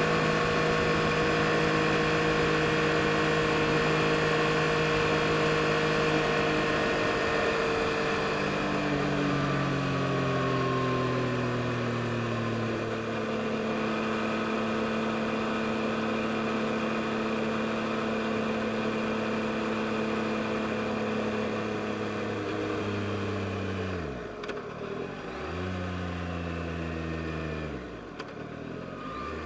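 Yamaha MT-09 SP's 890 cc inline-three engine running on the move: the engine note falls slowly as the bike slows, holds steady at cruise, then dips sharply and picks up again twice near the end.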